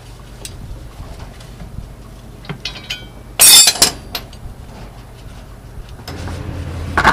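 Steel hand tools and a steel leaf-spring hanger clinking as a bolt is tightened with a wrench, with one loud, short metal clatter about halfway through and a last click near the end.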